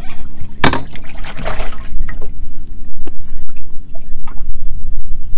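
Water splashing and dripping, with a few sharp knocks, over a steady low rumble.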